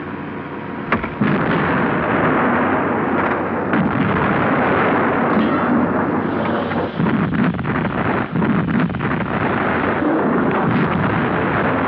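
Battle sound of artillery fire and explosions, a loud, dense continuous din that jumps up after a sharp crack about a second in, with many quick sharp cracks through the second half.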